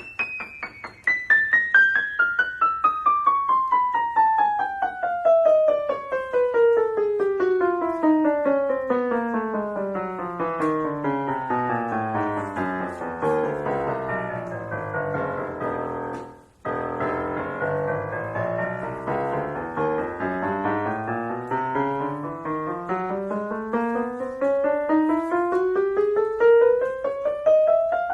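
Roland EP7 76-key digital piano playing a piano tone: a fast run of single notes descending steadily from the top of the keyboard to the bass. After a brief break about sixteen seconds in, it climbs back up the keyboard.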